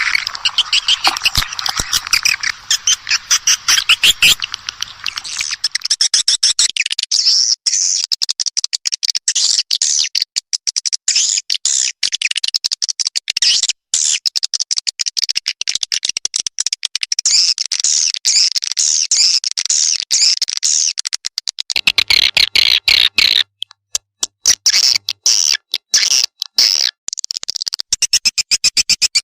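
Recorded edible-nest swiftlet calls: a fast, high-pitched twittering of many short chirps packed closely together, with a few brief breaks. It is a swiftlet lure call, played to draw swiftlets into a nesting house.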